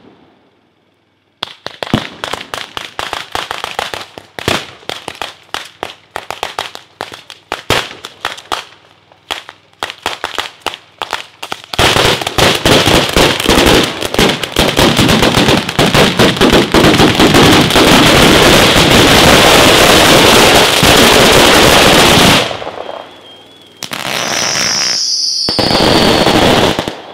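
Daytime Neapolitan-style fireworks battery (batteria alla napoletana): rapid, irregular firecracker bangs that build about halfway through into a continuous dense barrage lasting about ten seconds. After a brief lull comes a last dense burst of bangs, with a falling whistle through it.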